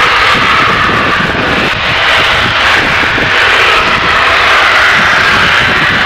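Natural gas compressor station blowdown: high-pressure gas venting from the station in a steady, loud hissing rush like a jet.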